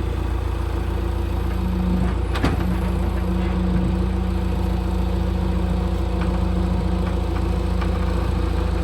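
A steady engine drone: a low rumble with a held hum over it, and one sharp click about two and a half seconds in.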